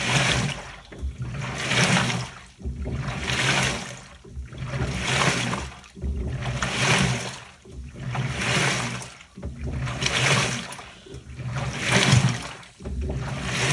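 LG Turbodrum WTR807 direct-drive top-loader washing: water sloshing in even surges about every 1.7 seconds as the drum and pulsator swing back and forth, with a low motor hum under each surge.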